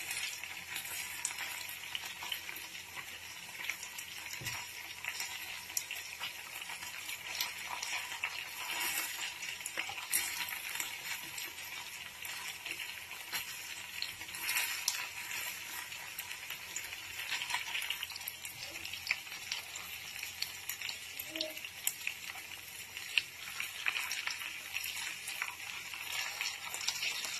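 Chicken wings sizzling and crackling in a nonstick frying pan, with occasional knocks and scrapes as tongs turn them. The crackling is the sign that the wings' juices have cooked off and they are nearly done and browning.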